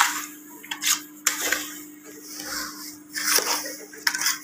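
Steel ladle scraping and clinking against the inside of a steel pot, several separate knocks and scrapes, as semolina is stirred and roasted in oil for halwa. A faint steady hum runs underneath.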